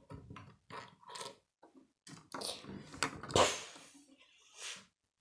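Small plastic Lego pieces and minifigures clicking and clattering on a wooden tabletop as they are handled, with one louder clatter about three and a half seconds in.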